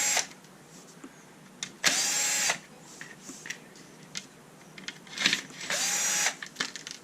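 Cordless powered screwdriver backing screws out of a plastic RC car chassis, run in short bursts of about half a second, each spinning up quickly. Light clicks of small parts fall between the bursts.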